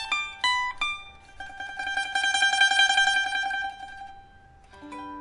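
A 2001 Meng Xianhong maple-bodied liuqin with steel strings and a newly fitted soundboard being played. A few quick plucked notes come first, then one note is tremolo-picked for about two seconds and fades. A last, lower plucked note comes near the end and is left ringing.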